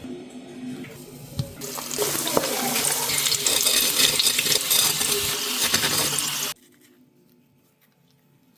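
Water running loudly and steadily for about five seconds, then cutting off suddenly.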